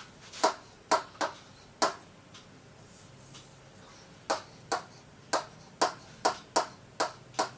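Stylus clicking against the glass of an interactive touchscreen board as letters are written, a sharp click each time the pen tip touches down. The clicks come in two runs, with a pause of about two seconds between them.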